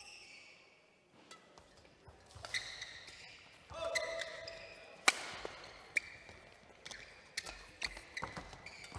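Badminton doubles rally: a serve, then rackets striking the shuttlecock with sharp cracks about once a second, the loudest about five seconds in. Short squeaks of court shoes come between the hits.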